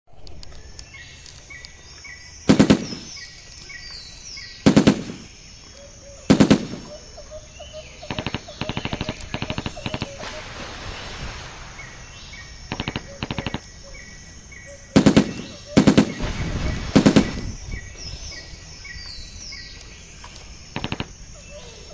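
Several short bursts of rapid machine-gun fire, each a fraction of a second of closely spaced shots, the loudest near the start and again in the middle, with lighter strings of shots in between. Birds chirp faintly in the gaps.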